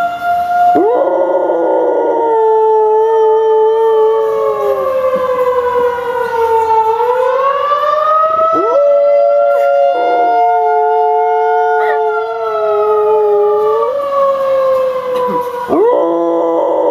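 Tornado siren wailing, its pitch sinking slowly and climbing again about halfway through, while a dog howls along with it about four times in long howls.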